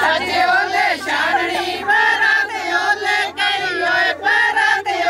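A group of women singing together in chorus, a Punjabi wedding folk song, with long held notes.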